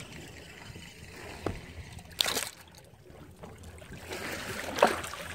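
Sea water sloshing beside a boat as a hooked Spanish mackerel is brought to the surface, with two sharp splashes, one about two seconds in and a louder one near the end.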